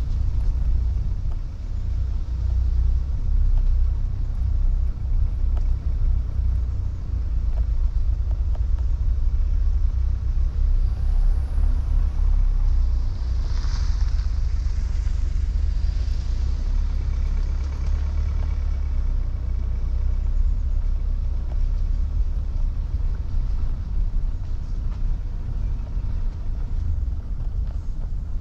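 Car driving on a narrow country lane: a steady low rumble of engine and tyres. About halfway through a brief brighter hiss rises and fades as another car goes by.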